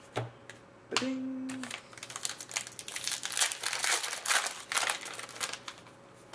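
Foil wrapper of a hockey card pack being pulled open and crinkled, a dense crackling that starts about two seconds in and lasts some three and a half seconds. A short sung 'ba-ding' comes just before it.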